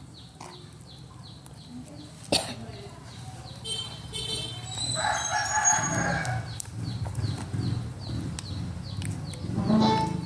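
Animal calls: a long pitched call lasting over a second about five seconds in, and a shorter one near the end, over a rapid, regular high chirping.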